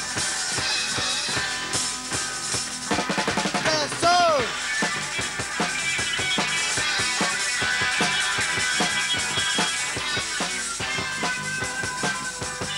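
Live rock band playing the instrumental close of a song, with a driving drum kit (bass drum and rimshots) under the full band. A short swooping glide in pitch cuts through about four seconds in.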